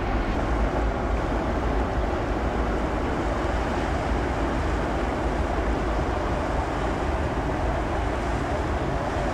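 Steady low rumble of a large car ferry passing under way, mixed with wind buffeting the microphone.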